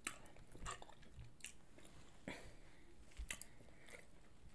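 A person chewing a mouthful of food close to the microphone, quietly, with a few soft, sharp mouth clicks spread unevenly through the chewing.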